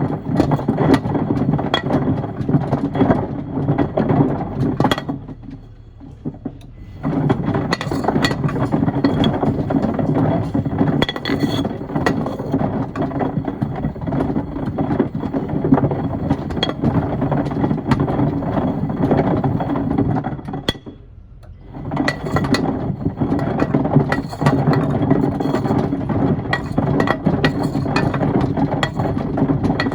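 Miele washing machine drum tumbling a load of wood and stones, with constant rattling, knocking and clinking. The drum stops briefly twice, about five and about twenty-one seconds in, then turns again, as a wash cycle does between rotations.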